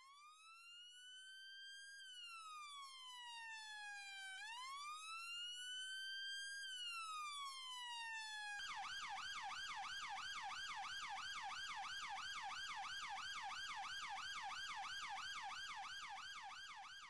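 Electronic police-style siren: a slow wail that rises and falls twice, then switches about halfway through to a fast yelp of about three cycles a second. It fades in at the start and fades out near the end.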